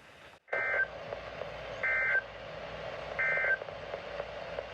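Emergency Alert System SAME header: three short bursts of warbling two-tone digital data, each about a third of a second, over a steady radio hiss. This is the encoded header that opens a new alert, here a tornado warning.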